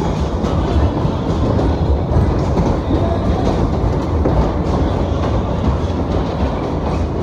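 Maxwell waltzer running at speed, heard from aboard a spinning car: a steady, loud rumble and clatter of the cars' wheels rolling round the undulating track.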